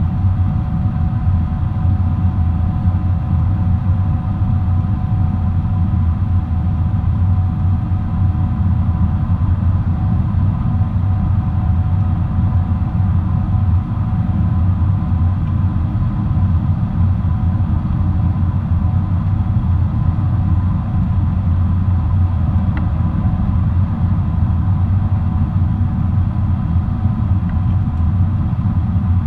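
Boeing 777-300 airliner in flight, heard inside the cabin: a steady, loud drone of the engines and airflow, a deep rumble with a faint steady whine on top.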